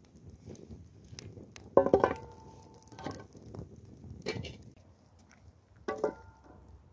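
Faint crackle of a small wood cooking fire, broken by a few sharp metal clinks of cookware that ring briefly. The loudest clink comes about two seconds in, another near the end.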